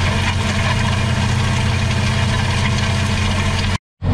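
Tractor engine running steadily under load while towing a heavy Agrimet disc harrow through field stubble, a constant drone. The sound cuts out for a split second near the end, then resumes.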